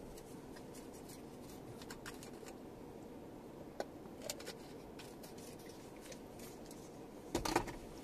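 Quiet cabin of a Lexus RX 450h standing at a red light: a low steady hum with scattered faint clicks, and a short burst of rattling clicks near the end.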